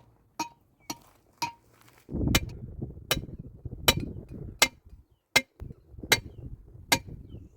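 Sharp metallic clinks repeating evenly, about one every three-quarters of a second, like a hand tool striking hard ground or stone. A rough rustling, scraping noise joins them about two seconds in.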